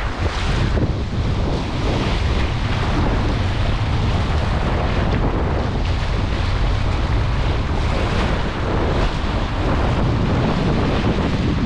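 Wind buffeting the microphone as a steady rumble, over small waves washing across a shallow rock shelf.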